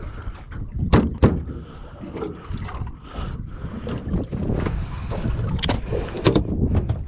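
Wind rumbling on the microphone aboard a small boat, with two sharp knocks about a second in and a few clacks near the end as a plastic esky lid is lifted open.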